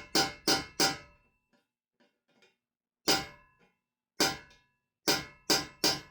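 Hammer blows on a steel chisel driving a rusted exhaust flange nut, each strike clanging with a short metallic ring. Three quick blows early, single blows about three and four seconds in, then three more quick blows near the end.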